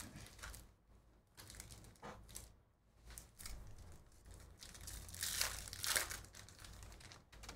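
Foil wrapper of a Topps Chrome baseball card pack being torn open and crinkled by hand. The crackling comes in short bursts and is loudest about five to six seconds in, as the wrapper is peeled back.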